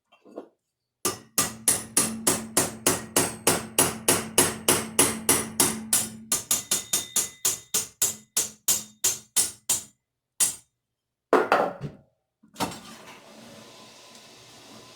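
Hammer tapping on metal in a quick, even run of about four to five blows a second for roughly nine seconds, each blow ringing briefly, followed by a couple of separate knocks. A faint steady hiss starts near the end.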